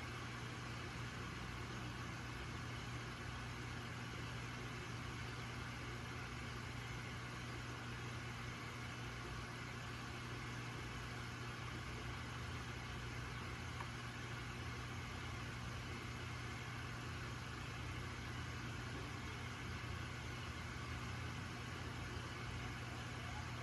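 Aquarium pump humming steadily in a low, even tone, with a constant hiss over it.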